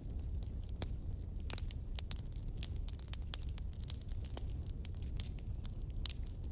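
Steady low hum under many scattered faint clicks and crackles.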